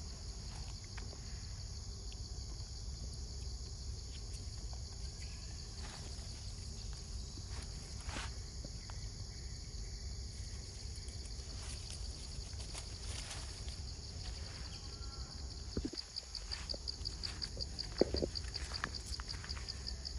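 Steady high-pitched insect chorus over a low outdoor rumble. Near the end a rapid pulsing trill joins in, along with a few sharp clicks or knocks.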